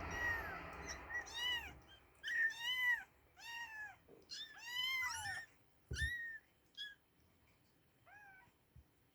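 Newborn Oriental shorthair kittens mewing: a run of eight or nine short, high-pitched cries, each rising and falling, with one longer cry about five seconds in and a fainter one near the end.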